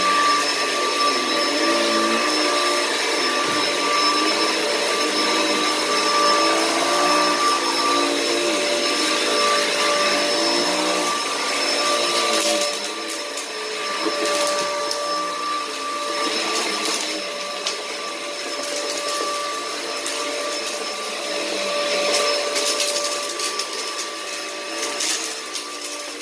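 Bissell CleanView upright vacuum cleaner running on carpet: a steady motor whine over a lower hum that wavers up and down in pitch. It gets a little quieter about halfway through.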